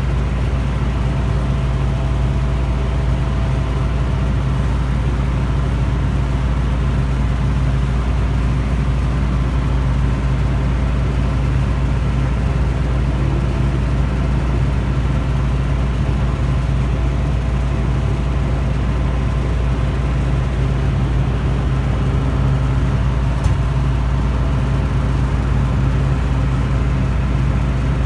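Reefer refrigeration unit running with a steady, loud, low hum.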